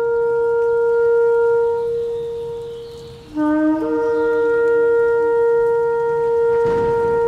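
Shofar blown in long held blasts. One note fades out about three seconds in; a new blast then starts on a lower note, breaks up to the higher one and holds it steady.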